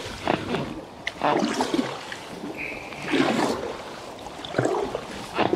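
Paddle strokes in the water beside an inflatable packraft: a splash and swish about every second and a half.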